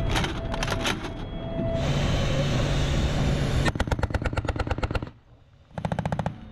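M2 .50-calibre heavy machine gun firing in bursts of automatic fire: short bursts about a second in, a long even burst of roughly ten shots a second lasting about a second and a half, and a short burst near the end. A steady low rumble fills the pause between the first bursts.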